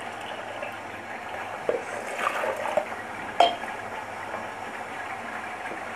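Thick chickpea masala simmering in a pot, a steady bubbling with a few sharp pops, the loudest about three and a half seconds in.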